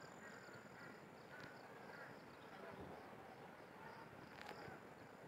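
Near silence: faint outdoor background with a thin, steady high-pitched tone.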